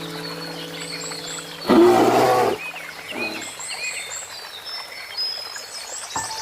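A large animal gives a short, rough, roar-like call about two seconds in, then a weaker one a second later. Birds chirp throughout, with soft background music.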